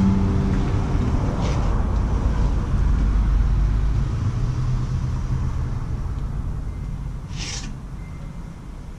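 A strummed acoustic guitar chord rings out and dies away in the first half-second. Under it is a low rumbling noise that swells over the first few seconds and slowly fades, with a short hiss about a second and a half in and a louder hiss near the end.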